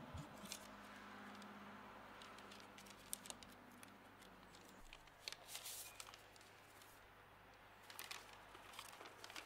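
Faint paper rustles and crinkles from an envelope and a folded letter being handled and opened, a few short scattered bursts over quiet room tone.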